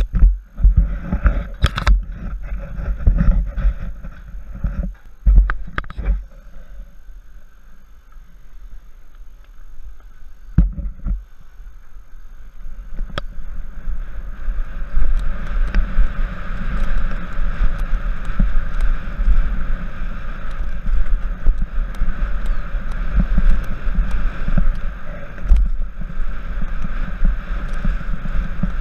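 Downhill mountain bike ridden fast down a dirt trail: wind buffeting the camera's microphone and tyres rumbling over the ground, with sharp knocks and rattles from the bike over bumps. About halfway through the rushing noise becomes steadier and louder.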